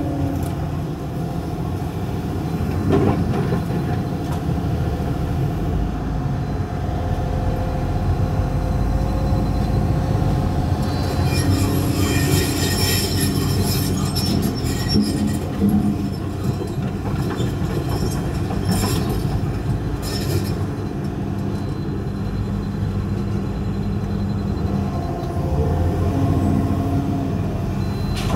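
Diesel excavator running with a steady low rumble as it demolishes a building, with bursts of crunching and metal scraping from the debris in the middle stretch.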